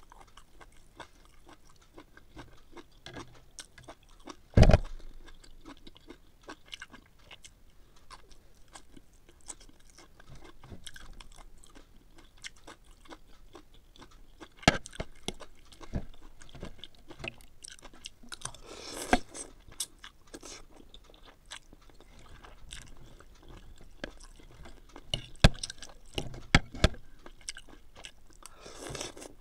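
A person eating noodle soup: chewing, with scattered sharp clicks of a metal fork and spoon against a ceramic bowl. A single loud thump comes about five seconds in, and there is a short slurp of noodles near the end.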